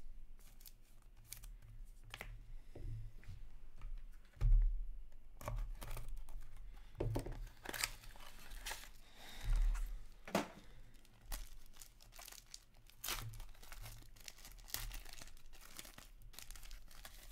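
Silver foil wrapper of a 2021-22 Upper Deck SP Game Used hockey card pack being torn open and crinkled by hand, with irregular crackles and rustles.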